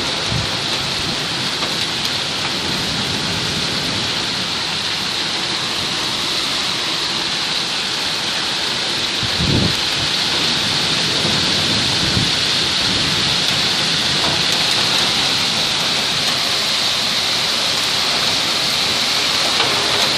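Heavy rain pouring steadily onto a street and parked cars, a dense even hiss; a brief low thump about halfway through.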